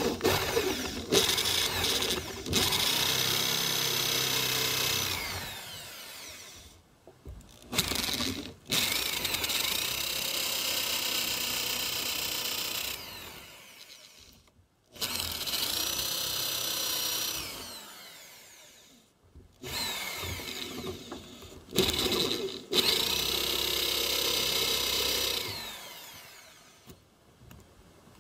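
Electric drill with a spade bit boring holes into a weathered log. The motor spins up, runs for a few seconds and winds down, four or five times over, with short pauses between runs.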